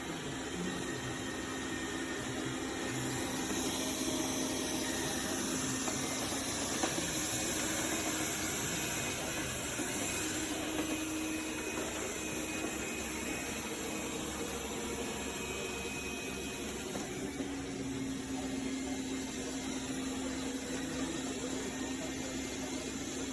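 Dreame L10s Ultra robot vacuum-mop running, a steady motor noise with a faint hum that shifts in pitch every few seconds.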